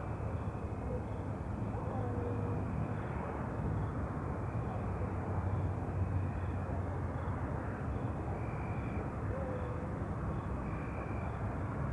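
Outdoor night ambience: a steady, distant low rumble under a hiss, with faint high chirps repeating at an even pace and a few faint short calls now and then.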